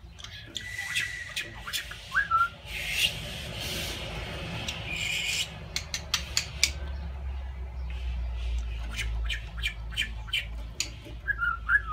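Budgerigar chattering: scratchy, rasping notes and a short rising whistle about two seconds in, then a long run of quick dry clicks, with a few short chirps near the end.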